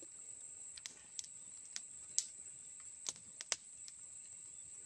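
Steady high-pitched drone of insects in tropical forest, with about eight sharp clicks and small cracks scattered through it, like dry twigs and leaf litter being stepped on or handled.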